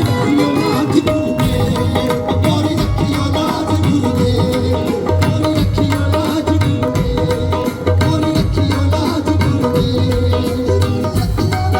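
Live band playing Punjabi music, instrumental with a steady drum beat and held tones over a heavy bass.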